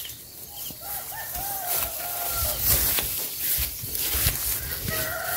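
Outdoor field noise with scattered soft knocks, and a distant drawn-out animal call twice: about a second in and again near the end.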